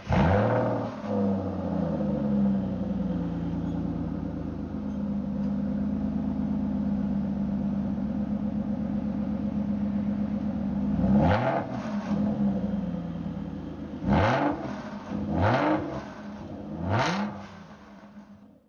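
Aston Martin Rapide's 6.0-litre V12 surging as it fires up, then settling into a steady idle. About 11 s in it revs once, and near the end it gives three quick throttle blips before the sound fades out.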